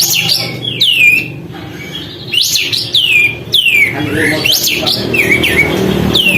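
Kapas tembak bulbul singing busily: a run of sharp chirps, several sweeping steeply down in pitch and hooking at the bottom, with quicker short notes between them.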